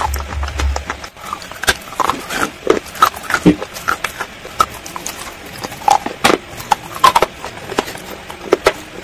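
Close-up eating sounds of hard, chalky pieces coated in thick white creamy paste being bitten and chewed: irregular sharp crunches, a few each second, with wet, sticky mouth noises between them.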